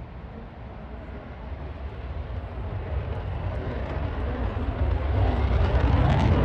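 Saab JAS 39 Gripen fighter jet's single afterburning turbofan engine running in flight. The jet noise builds steadily louder and is loudest near the end.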